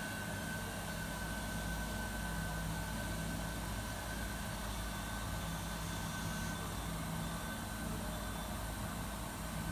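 Steady hum of commercial kitchen machinery: a low drone with a constant high-pitched whine over it, unchanging throughout.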